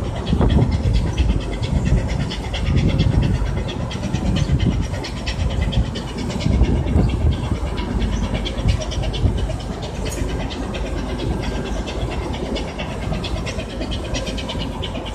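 A boat's engine running steadily with a fast, even rhythm, under gusty low rumbles of wind on the microphone.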